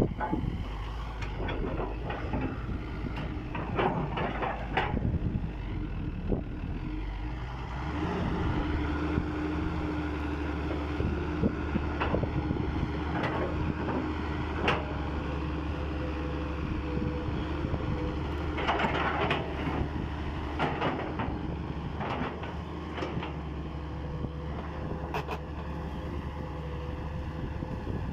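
Hitachi Zaxis 210LC excavator's diesel engine running, with a steady whine joining the low hum about eight seconds in. Occasional short metallic clanks and squeaks from the machine.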